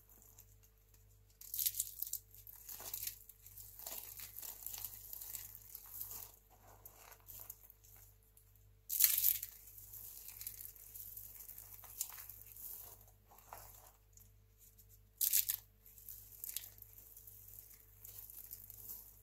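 Dry, crispy crumbs of recycled soap crunching and crackling as a hand crushes and scoops them. The three loudest crunches come near the start, about halfway and about three-quarters through, with small, irregular crackles between.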